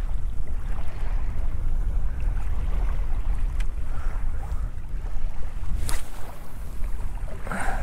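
Steady wind rumble buffeting the microphone over small waves lapping at the shoreline. A brief sharp sound about six seconds in comes as a spinning rod casts the lure.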